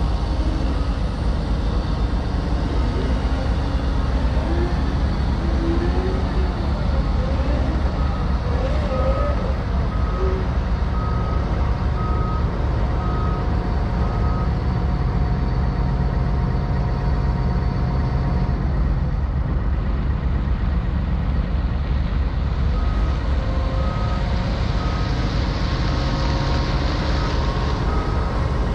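Heavy diesel engine running in a steady low rumble as a wheeled excavator drives down off a lowboy trailer. Its travel alarm beeps in an even series for several seconds midway and again near the end.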